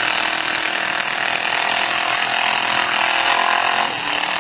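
Several demolition derby cars' engines running hard at once, a loud, steady mechanical din.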